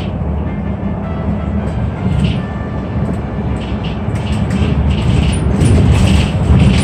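City bus under way, heard from inside the cabin: a steady low engine and road rumble with short, light rattles, growing louder in the last second or two.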